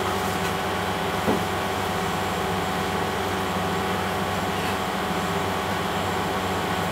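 A steady machine hum made of several held tones that never change, with one small click about a second in.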